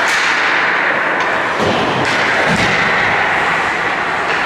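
Ice hockey game ambience in a rink: a steady wash of skating and arena noise with several sharp clacks and two dull thuds, about a second and a half and two and a half seconds in.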